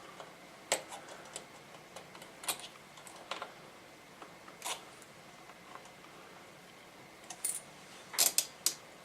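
Scattered light clicks and taps of small radio parts being handled and fitted together, with a quick cluster of clicks near the end.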